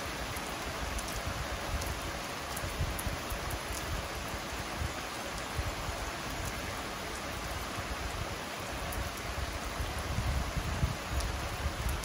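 Heavy rain falling steadily on a river's surface and a wet concrete deck, a continuous hiss of downpour.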